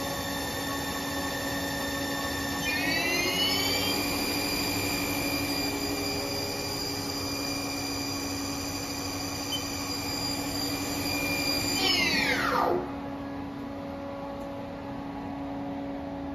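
Haas TL-1 CNC lathe spindle running under power with a steady multi-tone whine. About three seconds in the whine steps up in pitch as the spindle speeds up to near 2,000 rpm. About twelve seconds in it falls quickly in pitch and stops as the spindle winds down, leaving the machine's lower steady hum.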